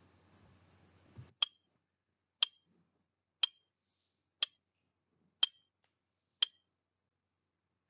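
Countdown timer's clock-tick sound effect: six sharp ticks, one a second.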